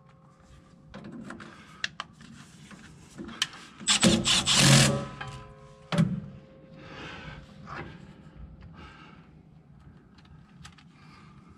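A cordless Milwaukee M12 Fuel driver runs briefly about four seconds in, a short motor whine as it drives a fastener into a sheet-metal generator cover. Lighter clicks and scraping handling noises come before and after it.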